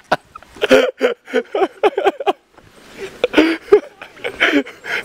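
A person's voice in short, choppy bursts with brief gaps between them.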